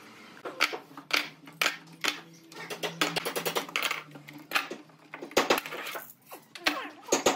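Steel screw clamps being loosened and taken off a wooden frame: a string of sharp metallic clicks and clinks, with a quick rattle about three seconds in.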